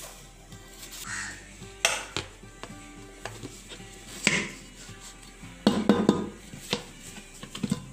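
Round aluminium cake tin and cake board knocking and clattering against the counter as a baked sponge is turned out. There are a handful of sharp knocks, the loudest cluster about six seconds in, over soft background music.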